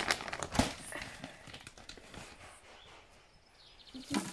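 Two sharp knocks, then dry horse feed tipped from a scoop into a feed bowl near the end, landing with a thump.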